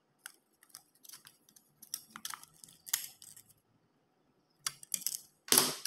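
Thin aluminum soda-can sheet crinkling and clicking as it is folded by hand over the edge of a steel ruler: short, irregular crackles, the loudest just before the end.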